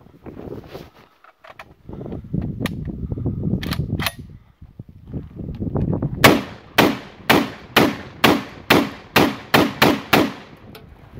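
Magazine-fed semi-automatic shotgun fired about ten times in quick succession, roughly two shots a second, emptying a 10-round magazine. Before the first shot there are a few sharp clicks and clacks as the gun is handled and readied.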